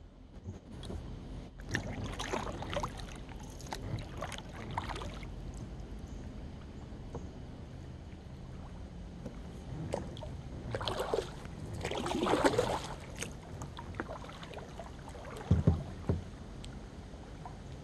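Kayak paddle strokes: the blades dip and splash in shallow river water in two spells of strokes, one early and one past the middle, with a couple of dull knocks near the end.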